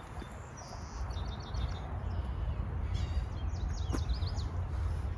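Birds chirping: a quick run of short high notes about a second in, then a string of high downward-sweeping calls, over a low steady rumble, with one sharp click near the end.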